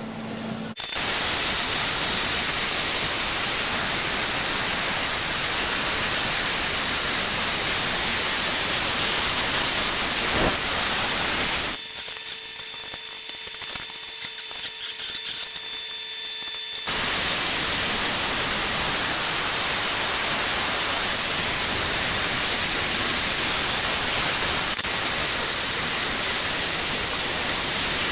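A steady, loud hiss from a shop tool or air-driven process. It runs for about eleven seconds, breaks off for about five seconds of quieter clicking, then starts again.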